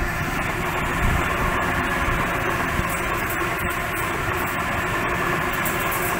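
Sydney Trains Tangara double-deck electric train passing close by: a steady din of wheels on rail and running gear, with a faint hum of the traction motors.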